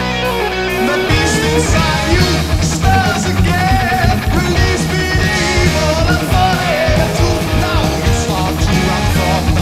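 Heavy metal band playing on a 1987 demo recording: distorted electric guitars, bass and drums, with a high lead line bending and wavering above them.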